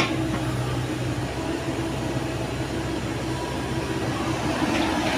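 Komatsu PC70 hydraulic excavator's diesel engine running steadily under digging work as the arm scoops and lifts a bucket of earth, with a faint steady whine over the engine hum and a single short knock right at the start.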